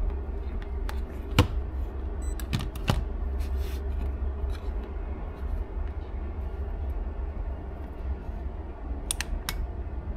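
Scattered light clicks and taps from handling multimeter test probes and a small power-switch box, over a steady low background hum. Two quick clicks come close together near the end.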